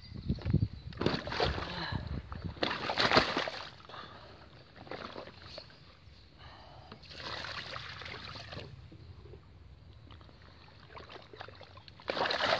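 Wet rustling and sloshing as a large mirror carp is laid down and handled on a wet plastic unhooking mat, in irregular bursts, the busiest in the first few seconds.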